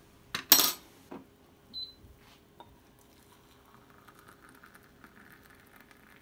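A few sharp clinks of a ceramic cup and small stainless saucepan being handled, the loudest about half a second in. From about four seconds in comes a faint steady trickle as thick Turkish coffee is poured from the saucepan into the cup.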